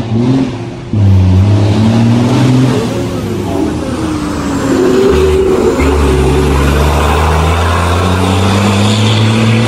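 A rally truck's diesel engine accelerating hard on a special stage, its revs climbing and dropping at gear changes about a second in and again around five seconds, then held high as it approaches.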